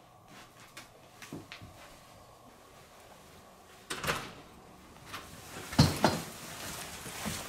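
A house front door being unlocked and opened: a few light clicks, then a rattle of the lock and handle about four seconds in, and a louder clunk with shuffling near six seconds as the door swings open.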